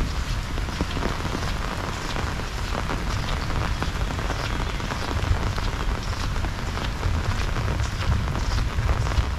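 Heavy rain falling steadily: a dense patter of many drops over a constant low rumble.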